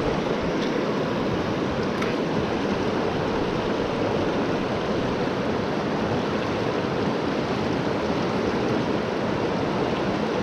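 Mountain river rushing over rocks in shallow rapids: a steady, unbroken water noise.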